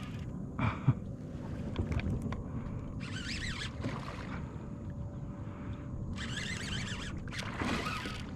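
Water sloshing and splashing against a kayak, with wind on the microphone and a couple of sharp knocks on the hull about a second in.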